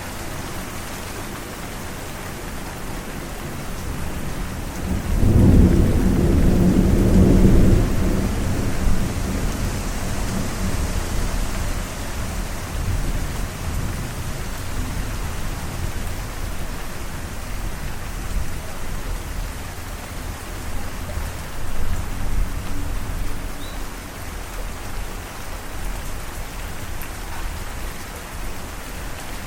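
Thunderstorm: steady rain with rolling thunder. A loud deep rumble of thunder swells about five seconds in and rolls for several seconds, and a smaller rumble comes later, under the constant hiss of rain.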